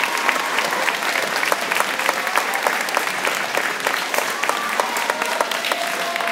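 Audience of students and staff applauding, many hands clapping steadily.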